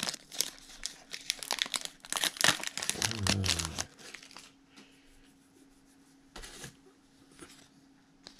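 Foil wrapper of a basketball trading card pack crinkling and crumpling as the cards are pulled out and the wrapper is thrown aside. The dense crackle lasts about four seconds and then stops, leaving a faint steady hum and one brief rustle about six and a half seconds in.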